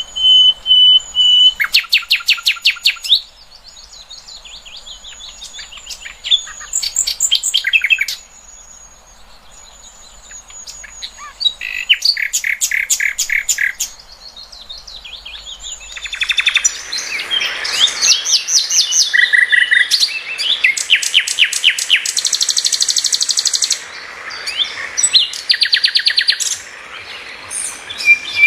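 Songbirds singing, a masteran mix of competition-bird song: bursts of fast, high-pitched trills and rapidly repeated chirps between short pauses, with a thin high whistle at the start, getting dense and overlapping over the second half.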